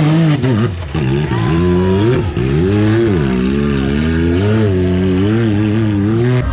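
Off-road vehicle engine revving up and down repeatedly, its pitch rising and falling in short throttle bursts as it works over rocks.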